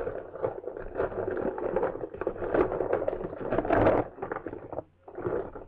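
Close handling noise: rustling, rubbing and light clicking of small plastic toy figures being rummaged through and handled. It stops about four seconds in, then comes back in a short burst near the end.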